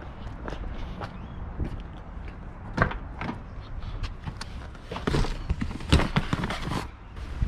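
A few scattered knocks and clunks, the loudest about three seconds in and again around five to six seconds in, over a steady low rumble.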